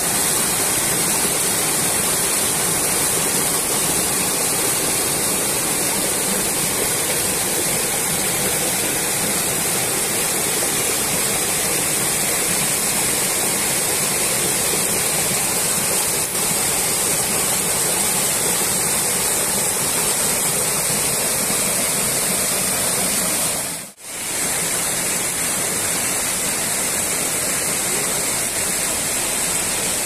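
Small waterfall cascading over boulders in a rocky stream: a steady, full rush of falling water. It cuts out for a moment about three-quarters of the way through and then resumes.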